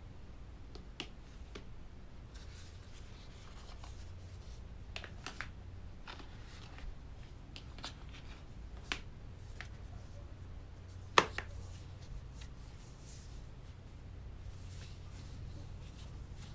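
Hands fitting an iPad Air into a silicone folding folio case: scattered light taps and clicks of the tablet and case against each other, with one sharp, louder click about eleven seconds in as the tablet is pressed into the case's shell. A low steady hum runs beneath.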